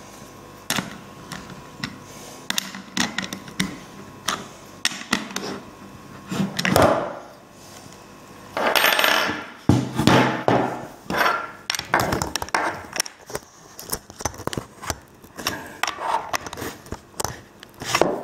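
Irregular metallic clicks and clinks of a wrench and socket, with knocks of the plastic saw body on a wooden table, as the guide-bar nut of a small cordless mini chainsaw is given its final tightening.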